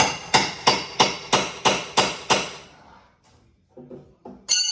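Hammer striking a steel cat's paw, metal on metal: about eight quick ringing blows, about three a second, driving the claw in under a screw head. Near the end, a single bright ringing metallic clink after two dull knocks.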